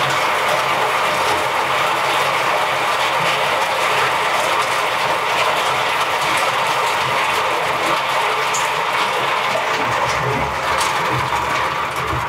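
Electric coconut husk chipping machine running, with a steady, dense clatter of cut husk chips pouring out of its chute onto a pile.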